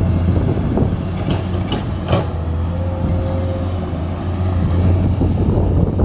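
Komatsu PC210 excavator's diesel engine running steadily under load as the machine digs, with a few sharp knocks between one and two seconds in.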